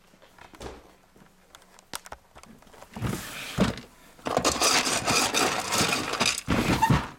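Loud rustling and scraping right against the microphone, likely from the camera being handled with its lens covered. It comes in a short stretch about three seconds in and a longer one from about four seconds in, and stops suddenly near the end.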